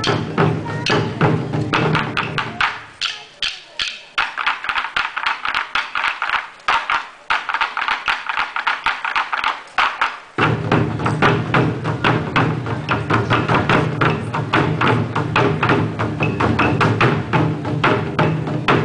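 Taiko ensemble drumming: barrel drums on slanted stands struck with sticks in a fast, dense beat. From about three seconds in to about ten seconds the deep drum tone drops out, leaving only sharp clicking strikes, then the full booming drums come back in.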